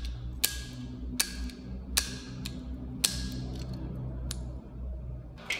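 Hand nibbler biting through thin scrap aluminum sheet: a sharp metallic click with each squeeze of the handles, roughly one a second, some with a short ring.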